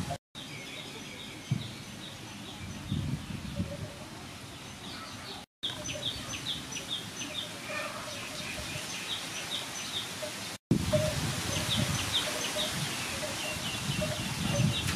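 Small birds chirping over and over over a steady outdoor hiss, with irregular low rustles and knocks and one sharp knock about a second and a half in. The sound drops out briefly three times.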